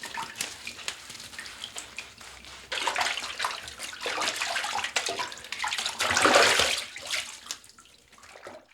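Water splashing and sloshing as someone washes in a bathtub, in uneven swells with small drips between them. The loudest swell comes a little past halfway, and the sound dies away near the end.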